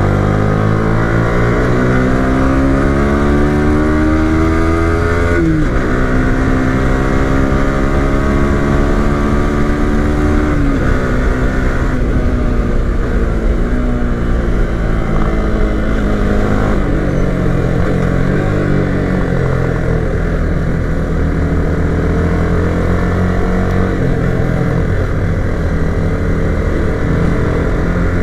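Yamaha R15 V3 motorcycle's 155 cc single-cylinder engine running hard. Its note climbs slowly and drops sharply twice in the first eleven seconds or so, then rises and falls at lower revs.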